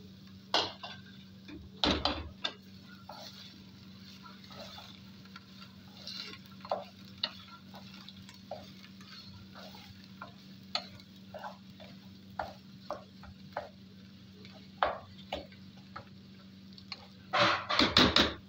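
Wooden spatula stirring radish bhujia in a non-stick pot on a gas stove, with scattered scrapes and knocks against the pot over a steady low hum. Near the end a quick run of louder clatters as the pot's glass lid is handled.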